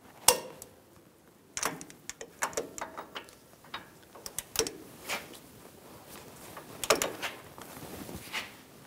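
Torque wrench on the brake caliper bracket bolts, tightening them to 130 foot-pounds: a string of sharp metallic clicks and clinks as the wrench is fitted to each bolt and pulled, the loudest about a third of a second in and again about seven seconds in.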